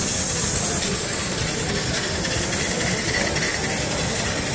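Small brass twin-cylinder model textile mill engine running on compressed air, amid the steady mechanical din of other running model engines.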